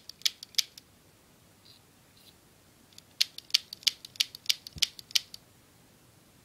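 Sharp clicks from a KJW P226 gas blowback airsoft pistol's trigger mechanism being worked repeatedly to spread freshly sprayed silicone oil. A few clicks come at the start, then about seven in quick succession a few seconds in.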